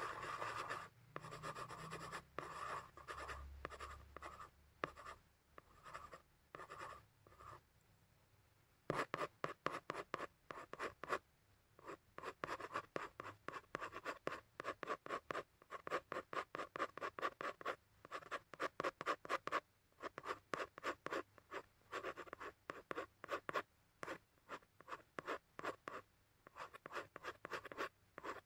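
Pen and pencil strokes scratching on drawing paper. Steadier strokes come first, then a short pause about eight seconds in, then rapid short hatching strokes, several a second.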